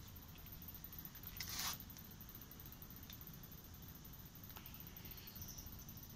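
Quiet background hum with one brief rustling scrape about a second and a half in, typical of a handheld camera being handled, and a few faint clicks later on.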